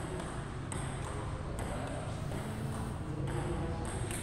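Table tennis ball bouncing, a few sharp ticks about a second apart, over a steady low hum.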